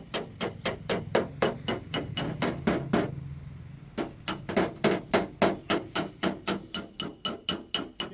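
Quick, even hammer taps on a car body panel, about four or five a second, with a break of about a second near the middle. This is the tapping-down of metal in paintless dent repair.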